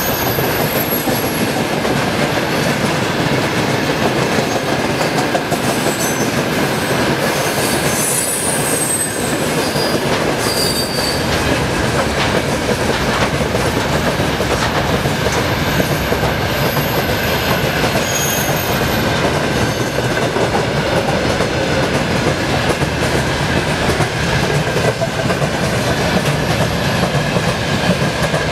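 A train rolling past close by: a loud, steady rush of wheels on the rails with clickety-clack over the rail joints and brief high wheel squeals now and then, mostly in the first half.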